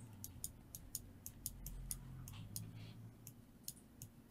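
Faint, light clicks of a computer mouse, about four a second and unevenly spaced, as the view is zoomed and panned around an image, over a faint low hum.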